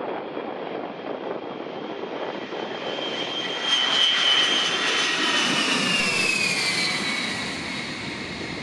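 Jet whine and rushing exhaust noise from a Boeing E-3A AWACS's four TF33 turbofan engines as it passes on its landing approach. The sound is loudest about four seconds in, then the whine falls in pitch as the aircraft goes by.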